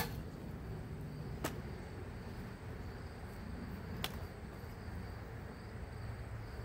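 Chainsaw cutting out right at the start, then faint low outdoor background with two sharp clicks, about a second and a half in and again about four seconds in, as the stopped saw is handled against the log.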